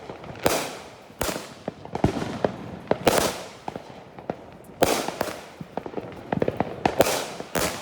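Fireworks going off: about six loud bangs a second or two apart, each trailing off in a fading hiss, with smaller pops in between.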